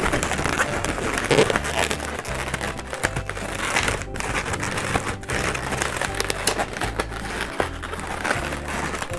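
Long latex twisting balloons rubbing, squeaking and crinkling against each other as they are wrapped and twisted by hand, over background music.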